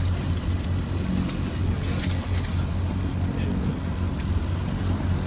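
Fishing boat's engine running with a steady low hum, under a hiss of wind and sea.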